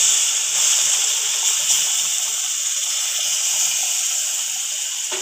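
Hot milk poured into a pan of ghee-roasted semolina, sesame and sugar, hissing and sizzling steadily, the hiss slowly dying down as it is stirred in.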